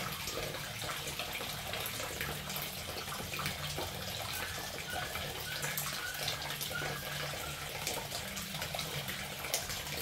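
A kitchen tap running steadily onto dishes in the sink while plates are washed by hand, with a light clink of crockery now and then.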